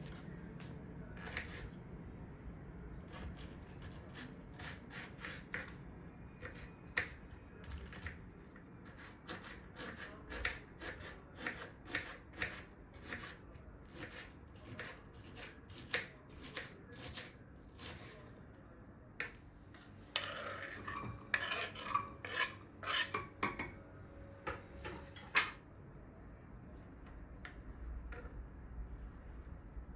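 Dishes and cutlery being handled: a run of light clinks and taps with some rubbing and scraping, busiest about twenty to twenty-five seconds in.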